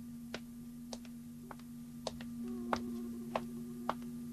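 Spaceship-bridge sound effect from an animated series: a steady low electronic hum with short instrument clicks, about two a second at uneven spacing.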